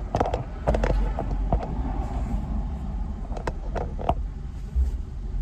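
Car engine idling, a steady low rumble heard from inside the car, with a few short knocks and clicks scattered through it.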